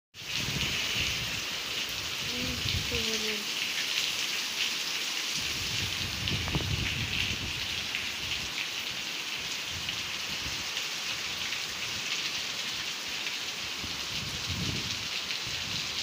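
Steady rain falling on wet ground and concrete, an even hiss, with low rumbles that come and go underneath.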